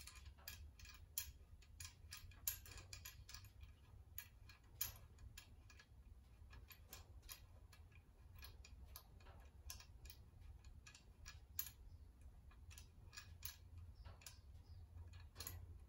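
Faint, irregular small metallic clicks and ticks as a threaded clevis is turned by hand on the end of a hairpin suspension rod, over a steady low hum. The clicks come closer together in the first few seconds and grow sparser later.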